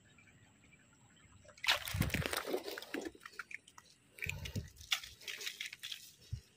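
Shallow water sloshing and splashing in irregular bursts, starting about two seconds in, with a few dull low thumps. Faint drips come before it.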